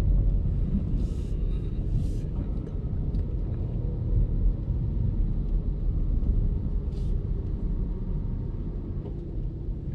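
Steady low rumble of a car heard from inside the cabin as it moves along, with a few short hisses about a second in, at two seconds and near seven seconds.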